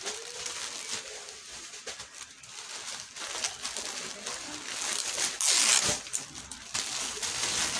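Rustling and crinkling handling noise with scattered clicks, swelling to a louder rustle about five and a half seconds in.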